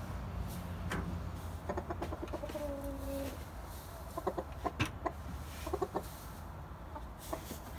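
Chickens clucking in short runs of quick notes, with a brief drawn-out note about three seconds in and a sharp knock near the middle, over a low steady hum.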